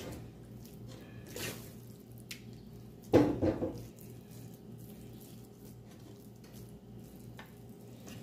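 A metal spoon pressing and spreading a sticky, wet rice mixture in a ceramic baking dish: soft squelching and light scrapes of the spoon on the dish, with one louder, brief sound about three seconds in.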